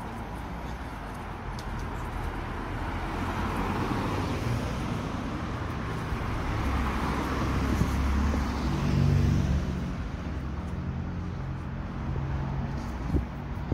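Street traffic: cars driving past, with tyre and engine noise swelling as a car passes about eight or nine seconds in, then a low engine hum fading. A short knock near the end.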